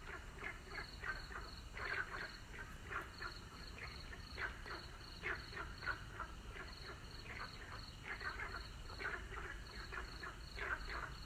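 A chorus of frogs calling, many short croaks overlapping at irregular intervals, with a high, evenly pulsed trill running underneath.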